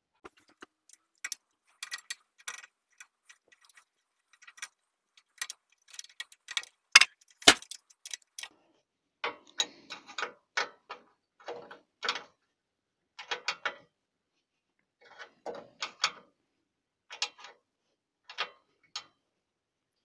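Metal clicks, clinks and small rattles as a lock washer and nut are fitted and tightened onto a bolt in an engine crankcase. The ticks come irregularly in short clusters, with two sharper knocks about seven seconds in.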